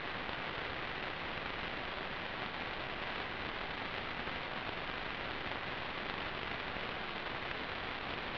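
Steady hiss of static, even and unchanging, with no motor or wind sound in it: the empty audio channel of an analog FPV video receiver.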